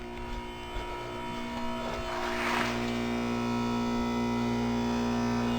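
2008 Goodman heat pump outdoor unit running in defrost mode: a steady compressor hum with several fixed tones. It grows louder about two seconds in, with a brief hiss at the same point.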